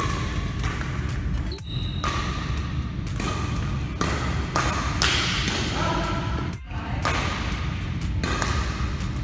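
Badminton rally: rackets striking the shuttlecock again and again, with sneakers squeaking on the wooden court floor, over a steady low hum.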